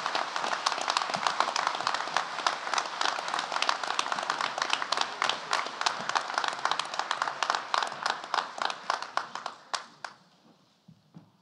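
Audience applauding: dense clapping that thins out and dies away about ten seconds in, followed by a few faint knocks.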